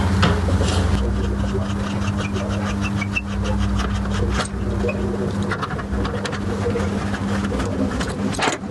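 Electric drill motor running steadily while drilling a hole for a threaded bolt, its hum steady for about five seconds and then fainter, with scattered clicks and knocks of workshop tools.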